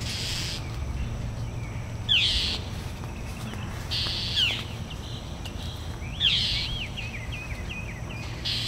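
Northern mockingbirds scolding a hawk near their nest: short harsh calls about every two seconds, with quick swooping whistled notes and a rapid run of short notes about seven seconds in. A steady low rumble runs underneath.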